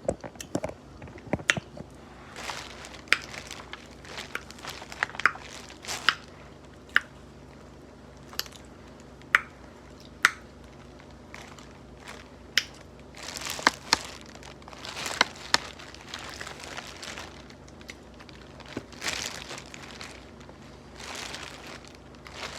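Close-up eating sounds of a seafood boil of crab, shrimp and potatoes: scattered sharp cracks and clicks of shells being broken and picked, with short stretches of crinkling and chewing.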